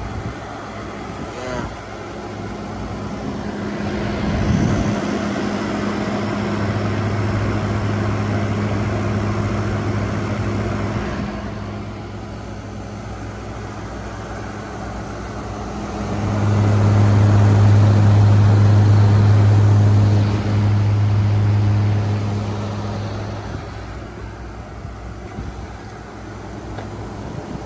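General Electric 5,000 Btu window air conditioner running on high cool: a steady rush of fan air over a low compressor hum. The hum swells much louder twice, for about five seconds and then about seven seconds.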